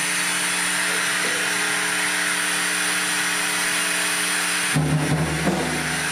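A live band's amplified synthesizers holding a noisy electronic drone: an even hiss over several steady held tones, with no drum hits. About five seconds in, a brief lower, louder swell rises over it and falls away.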